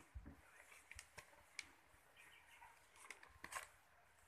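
Near silence, with faint scattered ticks and rustles of notebook paper pages being handled and turned.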